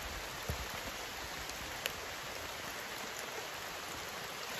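Steady rain falling on a shallow stream, with the stream water running; an even hiss broken by a couple of faint knocks.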